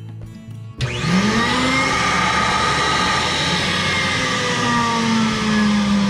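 Central vacuum power unit switched on about a second in, its motor whine rising as it spins up, then running steadily at full speed.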